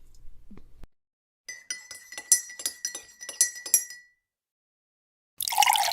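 Glass clinking: a quick run of sharp chinks lasting about two and a half seconds, with a ringing tone under them. Near the end a burst of splashing water begins.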